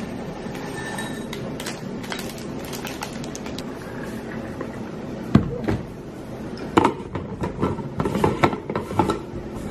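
Dry oat and grain flakes pattering into glass cups, over a steady hum. About five seconds in comes a sharp knock, then a run of clinks and knocks as glass cups and kitchenware are set down and moved on a tabletop.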